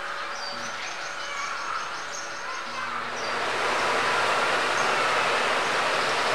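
Nissan Navara aircon blower motor, a squirrel-cage fan powered on the bench from a battery charger, starting up about three seconds in and then running steadily with a whoosh of air. It spins up and keeps running: the motor is still good.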